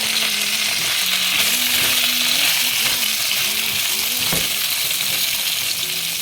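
Eggplant frying in olive oil in a pan: a steady sizzle, with a single knock about four seconds in.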